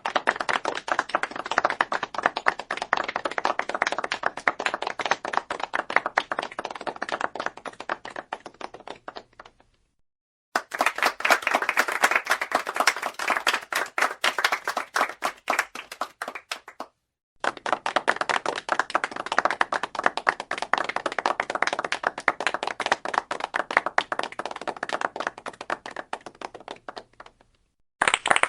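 Applause: a group of people clapping, in three separate clips one after another with short silent gaps between them. The first fades out at about ten seconds; the second and third each cut off suddenly.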